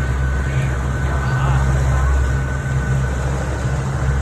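Boat engine running steadily, a constant low hum with a thin steady whine above it.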